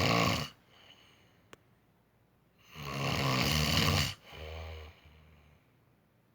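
Snoring in the rhythm of sleep: the end of one snore at the start, then a long snore about three seconds in, followed at once by a shorter, softer one, with quiet gaps between.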